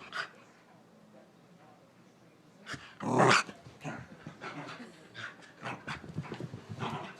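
Dog growling in excited play. It is quiet at first, then there is a loud burst about three seconds in, followed by a run of short, irregular growls and noises.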